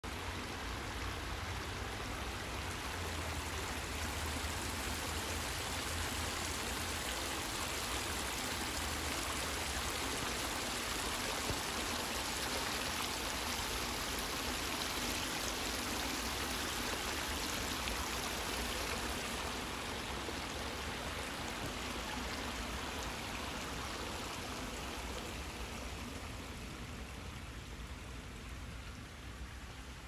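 Shallow brook babbling over small rock cascades: a steady rush and trickle of running water that grows a little softer near the end.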